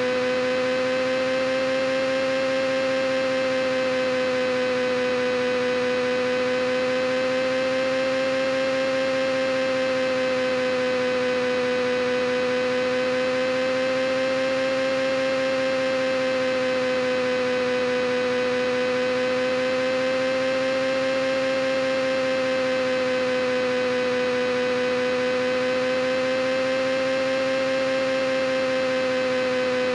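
A steady, unbroken hum with a clear pitch and many overtones, wavering gently up and down every few seconds.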